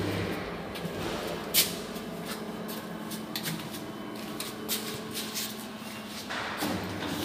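Lift lobby with a faint steady hum and a few light clicks and taps. About six seconds in, a louder sliding noise begins as the lift's doors start to close.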